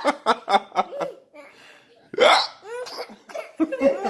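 People laughing hard in quick pulses, then a loud hiccup a little past halfway through, taken for Papa's hiccups. More laughter follows near the end.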